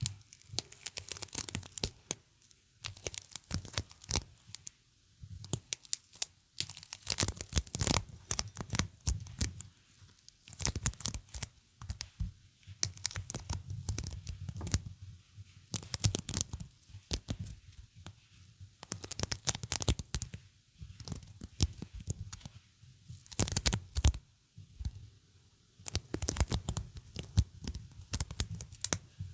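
Sticky material being repeatedly pressed and peeled away, a crackling, tearing peel that comes in clusters of a second or two with short pauses between.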